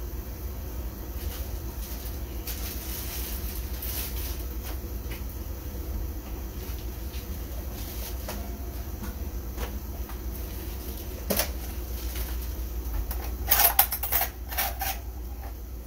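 Kitchen clatter: scattered light knocks and clicks over a steady low hum, with a sharp knock about eleven seconds in and a quick run of louder knocks and rattles near the end.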